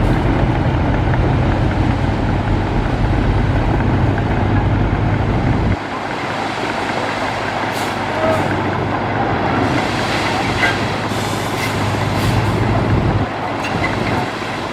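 Heavy diesel construction machinery running, a deep engine rumble that drops away suddenly about six seconds in and comes back for a few seconds near the end, with a few short hisses in between.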